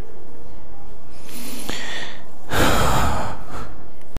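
Two loud breaths close to the microphone, about a second and a half and three seconds in, over a steady hiss; no engine is heard.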